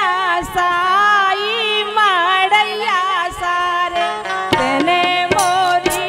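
Woman singing a Bundeli folk wedding song (gaari) in an ornamented, wavering melody, accompanied by harmonium and dholak drum. About four and a half seconds in, the melody changes and sharper drum strokes come in.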